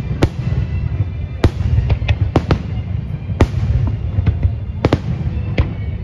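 Aerial fireworks shells bursting in quick succession: about ten sharp bangs at uneven intervals over a continuous low rumble.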